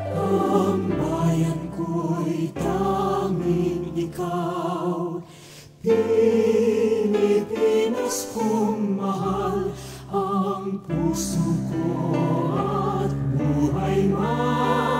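Background music with sung voices holding wavering notes, dipping briefly about five seconds in.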